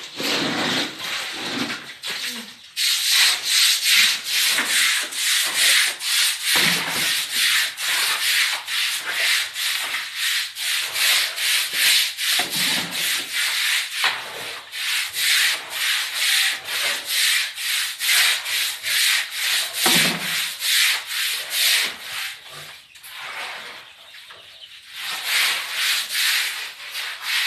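Broom scrubbing a wet concrete floor in steady rhythmic strokes, about two to three a second, with a short pause near the end.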